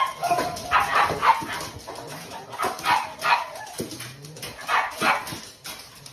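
A dog vocalising in short calls that come in little groups of two or three, with short pauses between them.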